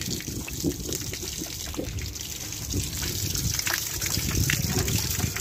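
Rainwater collected inside a jet boat's hull pouring steadily out of the open stern drain hole and splashing onto the ground below.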